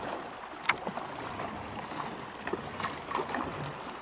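Shallow river current rippling over a riffle, with scattered short splashes and clicks from kayak paddle strokes.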